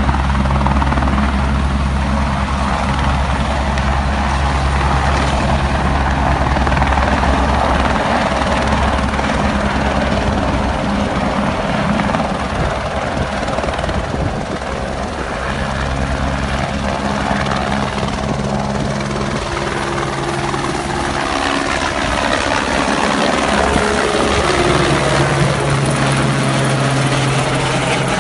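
Light helicopter's rotor and engine running loudly as it climbs away and flies overhead. It is a steady low drone with a hiss on top, swelling again and sweeping in tone near the end as it passes over.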